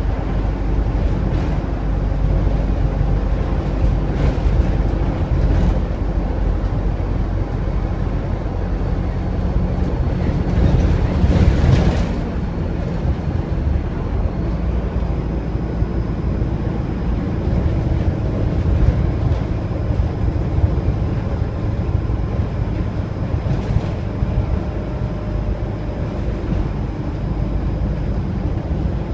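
Interior of an Optare Versa single-deck bus on the move: a steady low diesel engine and road rumble through the saloon, with occasional rattles. About eleven seconds in, a louder rush of noise swells and cuts off sharply.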